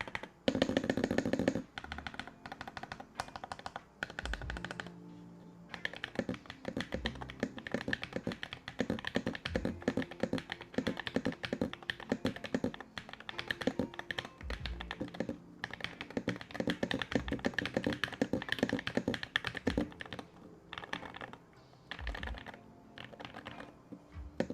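Typing on a mechanical keyboard fitted with ceramic keycaps: fast runs of sharp, clacky keystrokes broken by short pauses, with a few deeper thuds among them.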